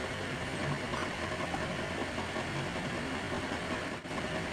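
Steady background noise: an even hiss with a low hum underneath, like a distant engine idling. There is no distinct event, and the noise dips briefly near the end.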